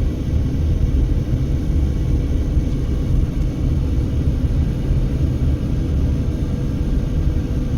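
Steady low rumble of road and wind noise inside a moving car's cabin, with strong wind outside, and a faint steady hum.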